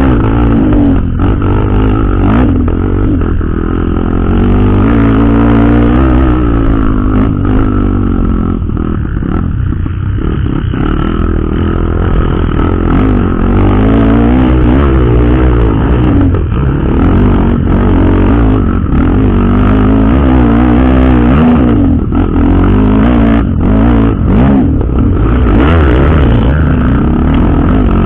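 Trail motorcycle engine running as it is ridden along a dirt trail, its pitch rising and falling with the throttle, with scattered knocks and clatter.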